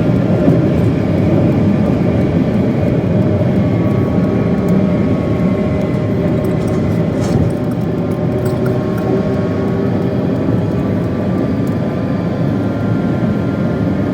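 Steady road and engine noise of a moving car, heard from inside the cabin, with a deep rumble that holds even throughout.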